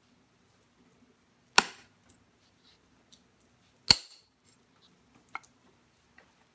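Punch notching a stone flake: a wooden billet strikes a copper punch set against the flake's edge, two sharp ringing blows about two seconds apart, then a light click a second or so later.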